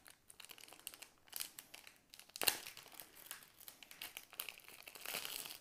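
A plastic holographic foil pouch crinkling as it is handled, in irregular crackles, with a sharper rustle about halfway through.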